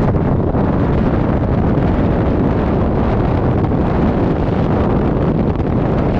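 Loud, steady rush of freefall wind buffeting a head-mounted camera's microphone.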